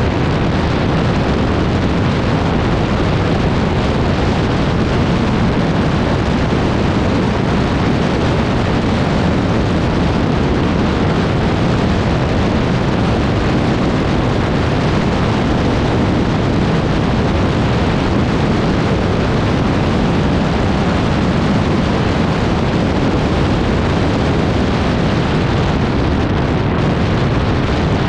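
ATV being ridden: a loud, steady rushing noise of wind buffeting the microphone mixed with the quad's engine running.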